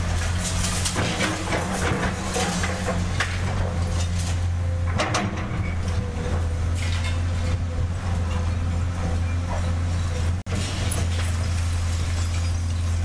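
Heavy diesel earthmoving machine running steadily, with scattered clanks and knocks. The sound drops out for an instant about ten and a half seconds in.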